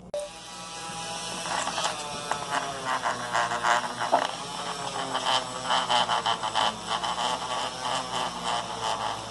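Dremel rotary tool with a polishing wheel switching on and running at low speed, buffing a watch lens with toothpaste. A buzzing whine with a rattling, scrubbing edge, building over the first second and then running steadily.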